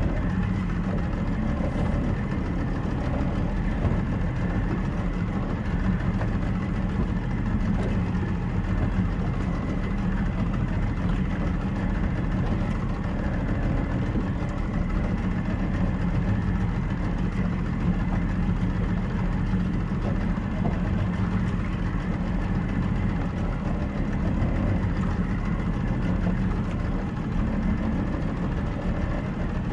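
Small motorboat's engine running steadily, with an even rushing noise over it.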